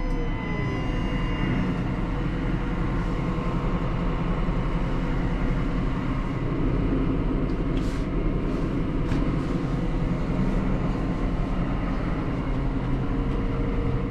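Deutz-Fahr 8280 TTV tractor's six-cylinder diesel engine and drivetrain running steadily under way, heard from inside the cab. There are a couple of faint clicks about eight and nine seconds in.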